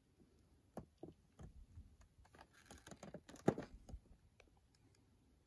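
Faint, scattered clicks and crackles of a toy's plastic blister pack and cardboard backing being handled, with a slightly louder cluster of clicks about three and a half seconds in.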